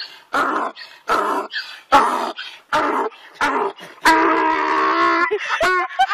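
A dog giving a series of short barks, about one a second, then one longer drawn-out call about four seconds in, and a few quick short calls near the end.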